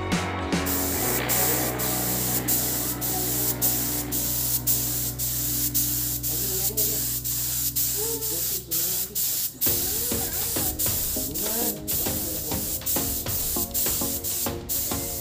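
Compressed-air gravity-feed spray gun hissing as it sprays paint onto a motorcycle body panel, the hiss broken by many brief pauses as the trigger is released between strokes.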